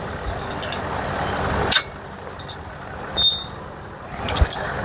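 Metal tools working on a truck's wheel hub: a sharp knock a little under two seconds in, then a louder metal clank that rings briefly about three seconds in, over a steady background hiss.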